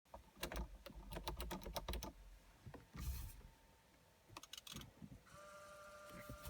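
A run of rapid clicks, a short rustle about three seconds in, a few more clicks, then a steady electronic tone that starts about five seconds in.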